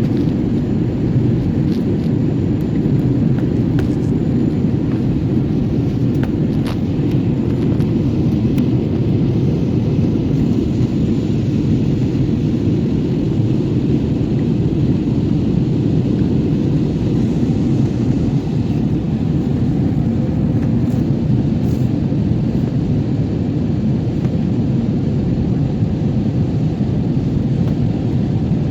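Steady airliner cabin noise: a constant low rumble of engines and airflow heard from inside the passenger cabin, unchanging in level.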